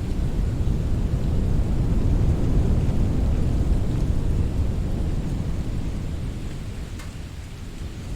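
Winter wind blowing in a low rushing gust that swells and then slowly eases off.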